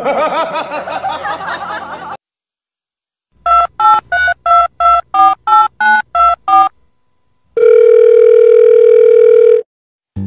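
Telephone keypad dialing tones: about eleven short two-note beeps in quick succession, followed by a steady tone held for about two seconds. A warbling, voice-like sound comes before them in the first two seconds.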